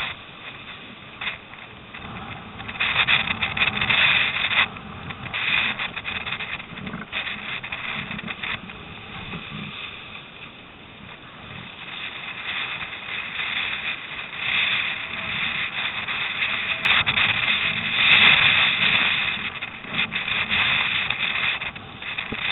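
Storm wind buffeting the microphone and choppy water rushing and splashing along a surfski's hull, swelling and easing in surges, with louder stretches a few seconds in and again near the three-quarter mark.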